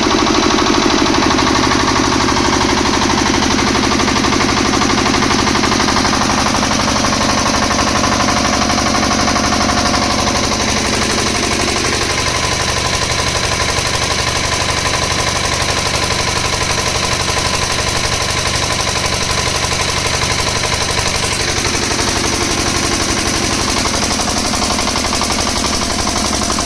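10 kVA transformer-type generator set running steadily during a load test, a loud, fast, even engine pulsing with a steady hum over it. About ten to twelve seconds in the hum fades and the running sound thins a little, a change in the set's load.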